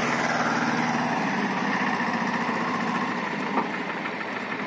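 Diesel engine of a Mahindra Jivo 225 DI mini tractor running under load as it hauls a heavily loaded sugarcane trolley; the engine note drops a little about a second in and then fades slowly.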